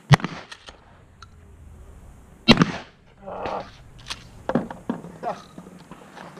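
Two shotgun shots about two and a half seconds apart, each with a short echo, followed by a few fainter sharp clicks and knocks.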